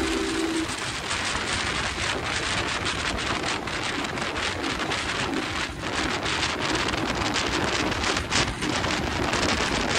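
Wind rushing and buffeting over the microphone on a 150 cc motorcycle moving at road speed, with the engine's hum faint beneath it. A steady engine tone fades away within the first second.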